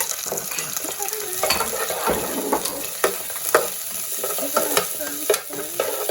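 Sizzling in a hot frying pan, with a utensil stirring and several sharp clicks as it knocks against the pan.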